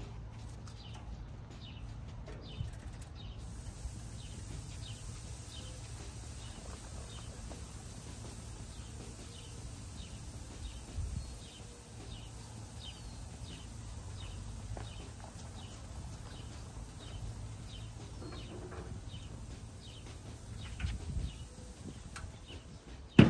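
Outdoor background of small birds chirping over and over, above a steady low rumble, with a few soft knocks.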